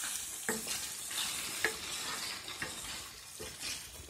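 Risotto rice sizzling in a stainless steel skillet as it absorbs a ladleful of stock, stirred with a wooden spoon that scrapes and taps against the pan now and then over a steady hiss.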